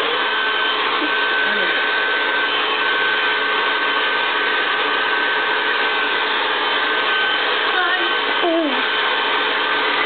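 Hand-held blow dryer running steadily: a constant rush of air with a steady whine through it.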